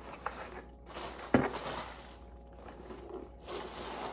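Shoes and their packaging being handled on a counter: light rustling, with one sharp knock about a second in.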